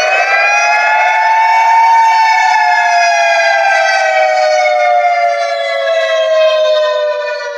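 Siren of the Ivory Coast emergency alert (EAS) alarm. It winds up to its top pitch about two seconds in, then slowly winds down and fades near the end, with two slightly different pitches sounding together.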